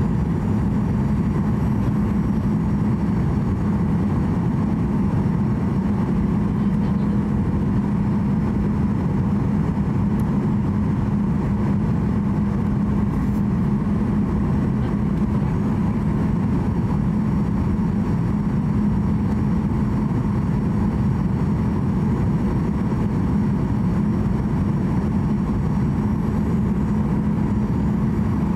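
Cabin noise inside a Boeing 737-800 on final approach: the steady roar of its CFM56 turbofan engines and the airflow over the fuselage, with a constant low hum running under it.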